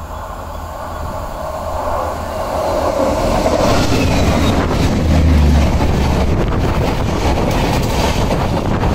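Trains on adjacent tracks passing each other, heard from the open door of a moving carriage: a steady rumble of wheels on rail swells as an oncoming locomotive draws level about five seconds in, the loudest moment. Its coaches then rush past close by with a rapid clattering of wheels over rail joints.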